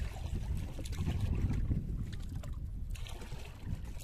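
Water splashing and dripping at the side of a small boat as hands work in the water, over a steady low rumble of wind on the microphone.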